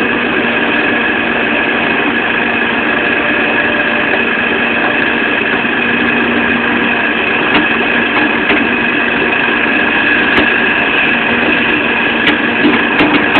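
Hydraulic excavator running steadily, with a steady high whine over the engine, as its bucket works in the soil. A few sharp clicks come near the end.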